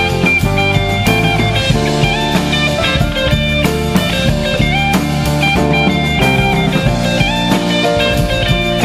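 Live band playing an instrumental passage: guitar and keyboard notes over a steady drum beat.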